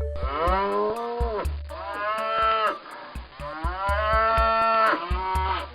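Domestic cow mooing: a few long, drawn-out moos, each rising and then sagging in pitch.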